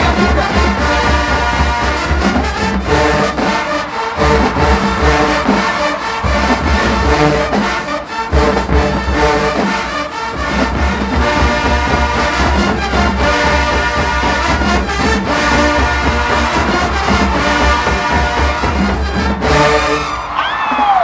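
Marching band playing loudly: brass (trombones and trumpets) over a heavy, steady drum beat. The band cuts off about twenty seconds in with a short falling note.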